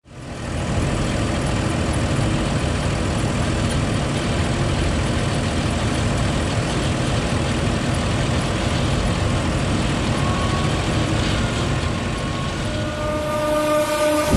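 Fendt 718 Vario tractor running steadily as it drives across a harvested maize field, heard close from the front of the machine. It fades in at the start, and a few steady tones come in under it near the end.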